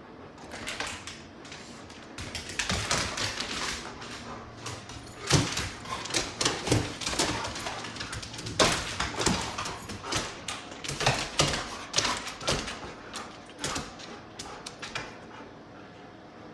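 A Great Pyrenees and a golden retriever play-wrestling on a hardwood floor: a busy, irregular run of claw clicks, scrabbling and paw thumps. It starts about half a second in and dies down near the end.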